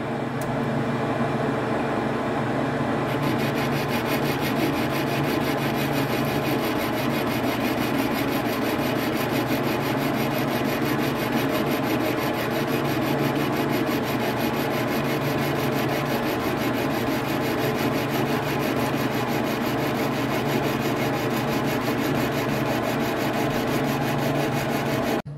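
Metal lathe running while a boring bar takes light skim cuts of about fifteen thousandths inside the bore of a steel part, to bring an out-of-round bore back round. The motor hum and cutting noise go on steadily, and the cut gets sharper and brighter about three seconds in.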